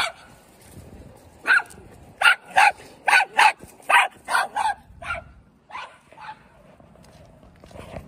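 A small dog barking at close range, about a dozen short, sharp barks that come fastest in the middle, then thin out and stop a little after halfway through.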